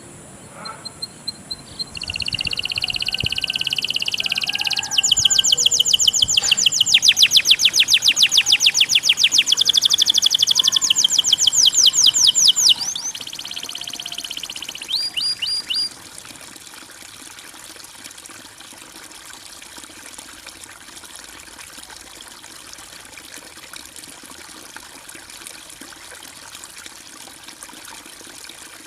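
A songbird singing high, fast trills of rapidly repeated notes, which stop a little over halfway through. After that comes only a steady trickle of flowing water.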